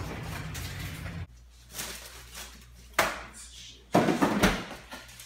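Kitchen handling sounds: a steady hiss with a low hum that cuts off abruptly a little over a second in, then a sharp knock about three seconds in and a louder cluster of knocks and clatter about a second later, like kitchen doors, drawers or dishes being handled.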